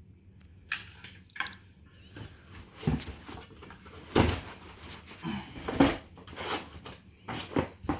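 An airsoft M16 rifle and its box being handled: a run of irregular knocks, clunks and rustles, the loudest about four and six seconds in.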